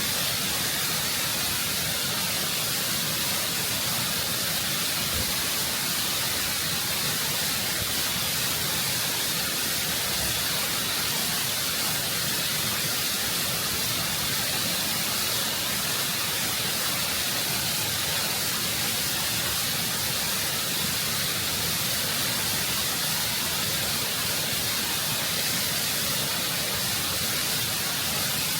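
Waterfall close up, water rushing and cascading over rock in a steady, constant hiss of spray.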